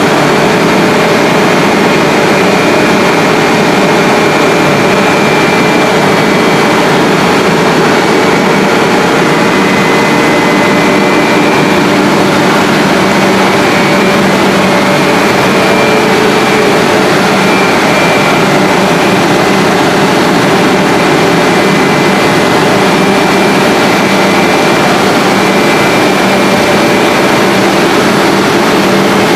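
HDPE pipe extrusion line running: a loud, steady machine noise with a low hum and a few constant tones from the extruder drive and the line's motors and pumps.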